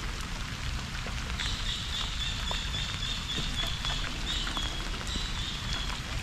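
Rain falling steadily, a patter of scattered drop ticks over an even hiss. A high, thin, wavering whine joins about a second and a half in.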